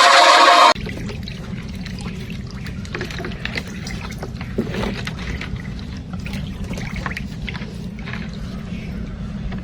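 Music cuts off abruptly under a second in, giving way to the steady rushing and trickling of flowing floodwater over a low rumble, with faint small splashes and clicks.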